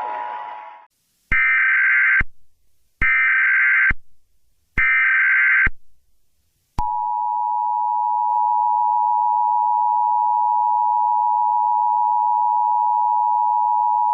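Emergency Alert System SAME header: three short bursts of screeching data tones, each about a second long with a short pause between them. A little under seven seconds in, the steady two-tone EAS Attention Signal starts and holds.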